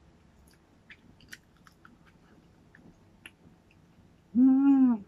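A woman eating with a fork: faint chewing and light fork clicks, then about four seconds in a short hummed "mmm" of enjoyment, the loudest sound.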